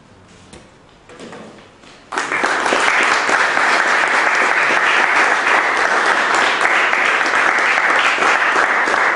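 Audience applauding: dense clapping that starts suddenly about two seconds in and stays loud and steady.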